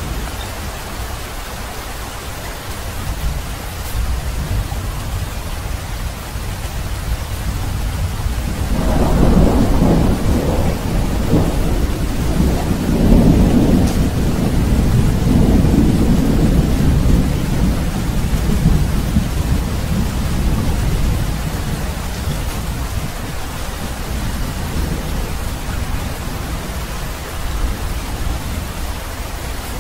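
Steady rain, with a long low roll of thunder that swells about a third of the way in, is loudest in the middle and slowly dies away.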